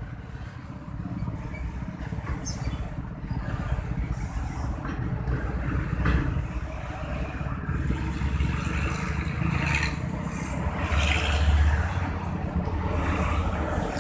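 Road traffic, motorcycles and cars: a steady low rumble that swells as vehicles pass, loudest about eleven seconds in.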